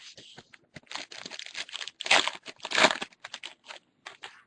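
Foil wrapper of a trading-card pack crinkling as it is torn open and handled: a run of short crackles, with two louder bursts about two seconds in and just before three seconds in.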